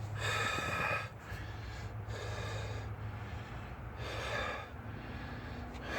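A man breathing heavily close to the microphone, with about four breaths roughly two seconds apart.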